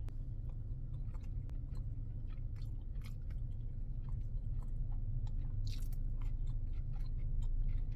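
Close-up chewing of a mouthful of Chinese takeout stir-fry with crisp vegetables, giving small wet clicks and crunches, with another forkful taken about six seconds in. A steady low hum of the car cabin runs underneath.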